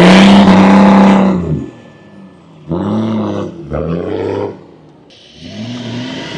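Off-road 4x4's engine revved hard, then dropping off, then two short throttle blips about a second apart and a steadier run near the end. This is a driver working the throttle in deep snow, where pressing too hard digs the wheels in.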